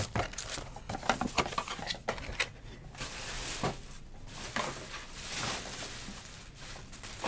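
Scattered light taps, knocks and soft rustles from handling cardboard card boxes and foil-wrapped trading card packs.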